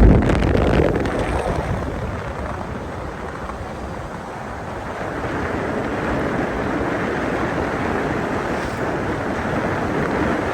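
Wind rushing over the microphone with the steady rumble of a moving vehicle on the road. It is loudest at the start, eases off a little after a couple of seconds, then holds steady.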